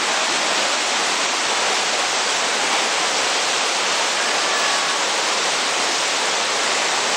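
River in spate surging through a rocky channel and over a small fall: a loud, steady rush of water.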